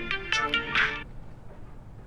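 Samsung Galaxy A12 phone playing a ringtone melody of bright electronic notes that cuts off about a second in.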